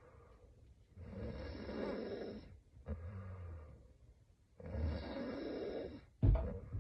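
A woman snoring in her sleep: two long breaths about three and a half seconds apart, a shorter low snore between them, and a sudden short, loud sound near the end.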